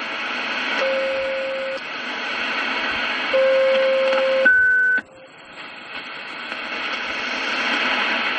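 Shortwave radio receiver hissing with band noise, with steady whistle tones from a carrier: two long low whistles, then a brief higher one. About five seconds in the hiss cuts out suddenly and then swells back gradually.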